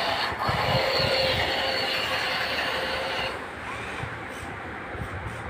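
Small electric gear motors of a wheeled obstacle-avoider robot car whining steadily as it drives, the whine dropping away about three seconds in.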